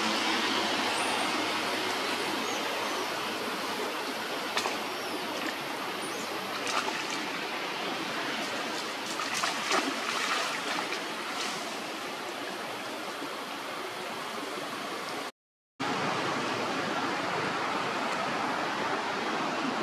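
Steady rushing of flowing water, with scattered faint clicks and a few faint high chirps. The sound cuts out completely for about half a second some fifteen seconds in.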